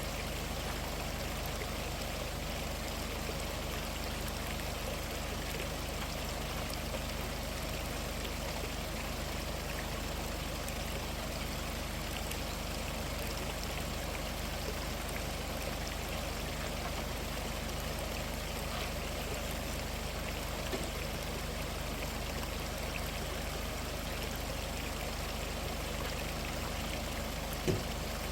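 Mountain valley stream flowing steadily, an even rush of water. A single soft knock near the end.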